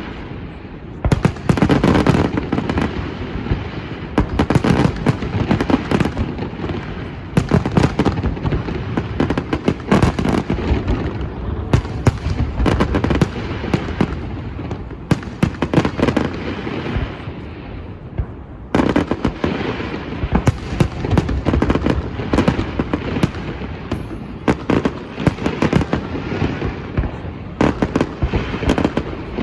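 Fireworks display: a dense, continuous barrage of bangs and crackling shell bursts, with brief lulls about a second in and around two-thirds of the way through.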